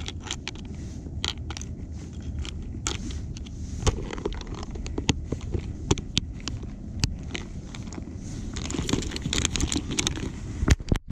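A clear plastic tackle box of soft-plastic baits and hooks being handled, closed and stuffed into a backpack: a run of short sharp plastic clicks, rattles and scrapes, with rustling of the bag near the end.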